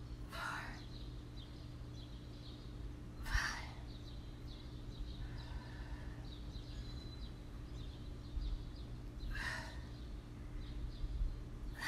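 Four short, breathy exhales, well spread out, from someone doing slow squats on a balance board, over faint bird chirps and a steady low hum.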